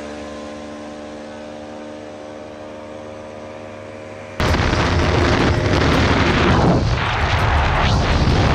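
Bajaj Pulsar RS200's single-cylinder engine running at steady revs, a steady droning tone that slowly fades. About four seconds in the sound jumps suddenly to a loud rush of wind noise over the engine of the bike at speed.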